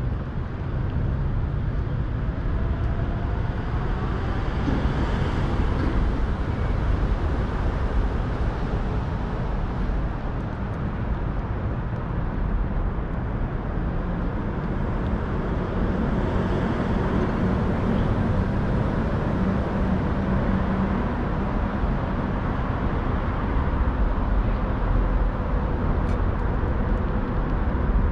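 Steady rumble of road traffic, a continuous low noise with no distinct events.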